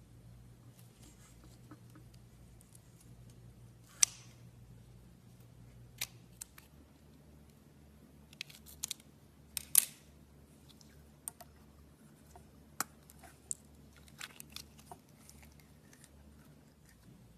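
Slime being pressed and played with by hand, giving scattered sharp clicks and pops, the loudest about four and ten seconds in, over a faint low hum.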